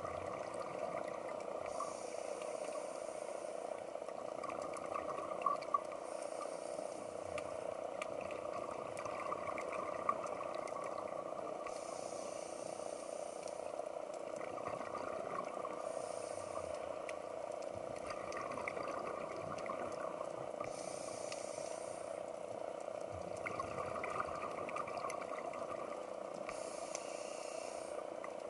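Underwater sound picked up through a camera housing: a steady hiss, with a brief burst of bubbling every four to five seconds, typical of a scuba diver's exhaled regulator bubbles.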